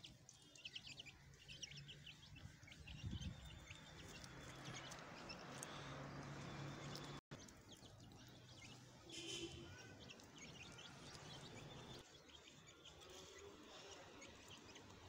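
Faint, scattered short high bird chirps over a low steady hum, with a brief dropout about halfway through.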